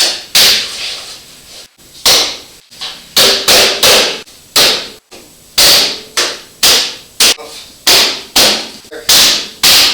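Repeated hammer blows on a pickup's rear bumper, driving clip-in parts into place: about sixteen sharp, loud strikes at roughly two a second, each with a short ringing tail.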